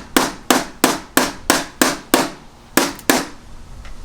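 Hammer striking a nail against a steel safe, sharp metal blows at about three a second, then a short pause and two last blows near the end.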